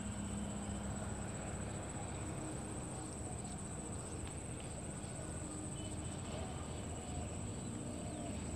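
Steady, high-pitched insect trill over a low outdoor rumble, with a few faint ticks.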